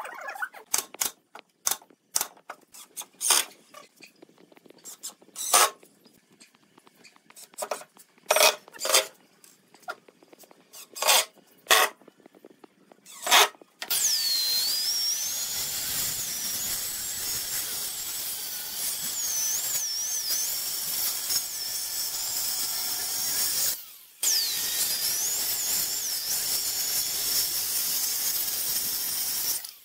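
Wooden knocks and clacks as pine hexagon boxes are shifted and set against each other. About halfway in, a handheld electric circular saw starts cutting a pine board with a loud, steady high whine that drops in pitch as the blade bites. It stops briefly near the end, then cuts again.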